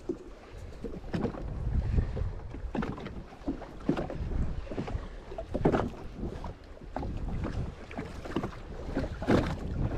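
Wind buffeting the microphone and small waves slapping irregularly against the hull of a Sea-Doo Fish Pro personal watercraft, with no engine running.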